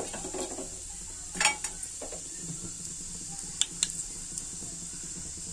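Hot oil in a kadai sizzling steadily around mustard and cumin seeds tempering in it, with a few sharp pops of the seeds now and then.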